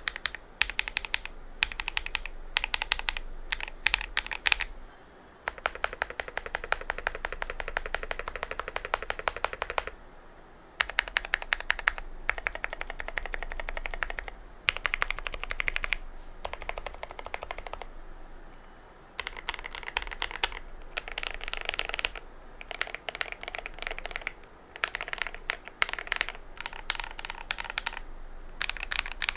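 Typing on a GMMK Pro mechanical keyboard with stock KTT linear switches, Kang White v3 and then, from about five seconds in, Wine Red v3. The keystrokes come as fast runs of clacks in bursts of a few seconds with short pauses between them.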